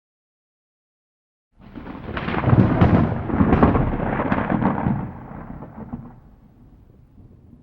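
Thunderclap: after a silence, a sudden crackling crash breaks in about a second and a half in, stays loud with sharp cracks for about three seconds, then fades to a low rumble.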